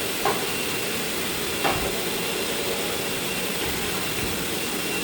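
Steady running noise of cable production machinery in a factory workshop, an even hiss with a faint high whine, broken by two light knocks, one just after the start and one under two seconds in.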